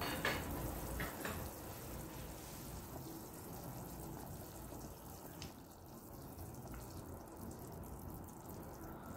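Pot of pork stew simmering with a steady bubbling, with a few light clicks of a fork poking the meat to test whether it is tender.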